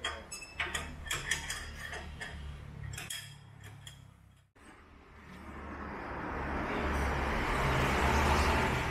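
Irregular metallic clicks and clinks of a hand tool working on a car's rear wheel, through the first four seconds or so. After a sudden break, a steady noise swells up and holds.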